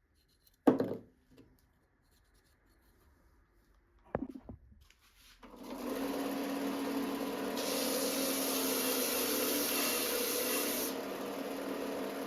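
Two short wooden knocks, then about five seconds in an electric power tool starts and runs steadily on wood, with a motor hum and a hiss that brightens for a few seconds in the middle.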